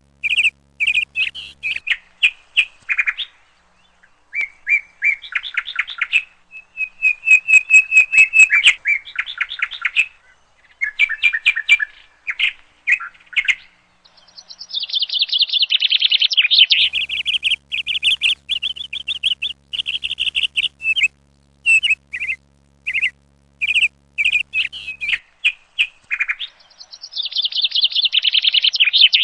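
A bird singing close by: rapid chirps, trills and whistled notes in quick phrases with short pauses, busiest in the second half.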